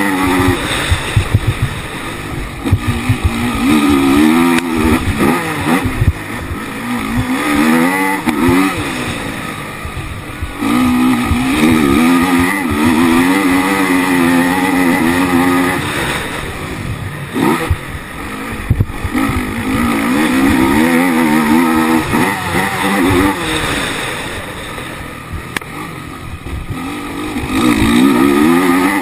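Race quad's engine heard onboard, revving hard and easing off again and again as the quad accelerates and brakes around the track. A few sharp knocks stand out above it.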